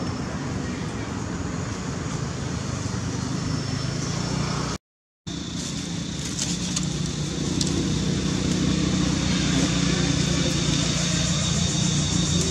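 Steady background noise of motor traffic, a low hum under a steady hiss, which cuts out completely for half a second about five seconds in.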